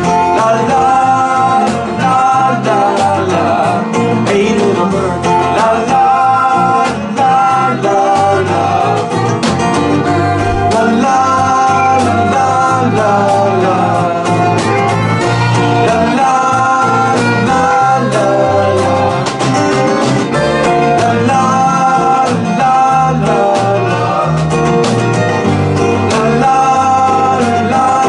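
Live band playing an instrumental break in a country-folk song, with fiddle, acoustic and electric guitars and a drum kit with cymbals.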